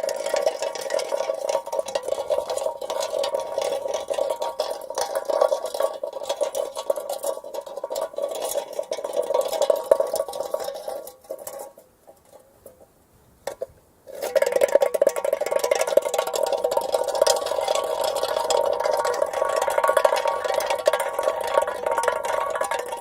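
Empty metal drink can rolling over road asphalt: a steady metallic rattle with a ringing tone. It fades out about eleven seconds in, then after a brief near-quiet gap a second roll starts suddenly and runs until it stops abruptly near the end.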